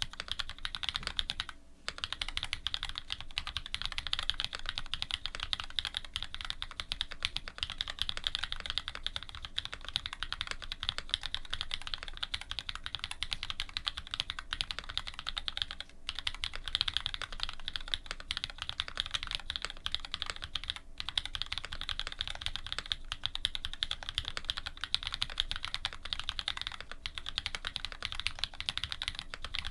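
Fast, continuous typing on a custom Dolphin linger re mechanical keyboard: lubed Cherry Black switches with Cream stems on an aluminium plate, under GMK keycaps. A dense run of keystroke clacks, with brief pauses about two seconds in and about halfway.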